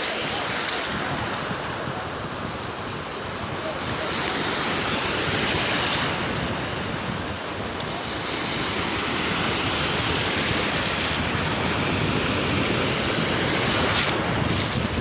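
Sea surf: waves breaking and washing up the beach, the rush swelling and easing in slow surges.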